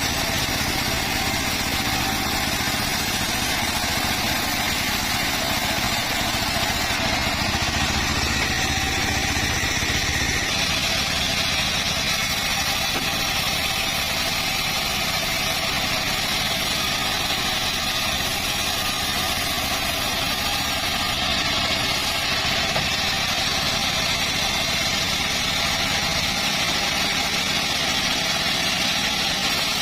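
Sawmill circular saw running steadily, a continuous machine drone without breaks.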